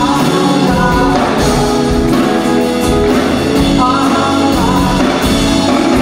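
Live OPM pop-rock band playing: a male lead vocalist singing over electric guitar, acoustic guitar and drum kit.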